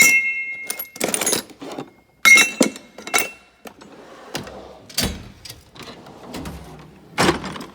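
Metal hand tools clinking and clattering in a toolbox drawer as they are handled, a series of sharp knocks, some ringing briefly, with duller knocks in the second half.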